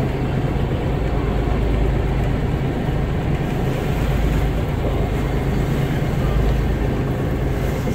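Small tour boat's engine running steadily under way, a low even hum with a hiss of water and wind over it.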